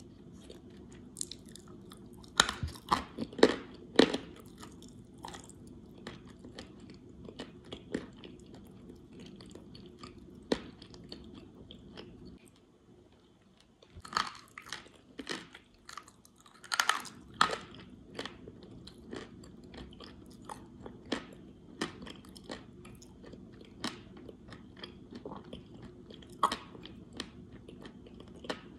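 Close-up chewing of dry clay in the mouth: dry, crackling crunches, loudest in clusters about two to four seconds in and again after a short lull around the middle, then steadier lighter chewing.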